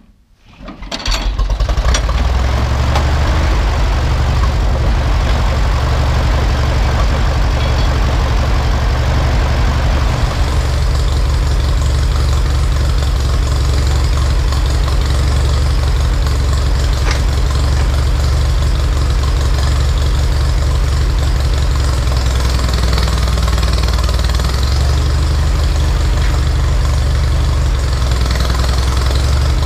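Ferguson TED20 tractor's four-cylinder engine starting and then running steadily, rising from quiet to full loudness in the first couple of seconds. The engine note shifts about ten seconds in and again in the latter part.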